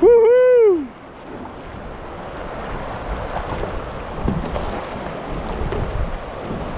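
A man's loud, excited shout in the first second, then the steady rush of river current through a small rapid past a kayak, with wind buffeting the microphone.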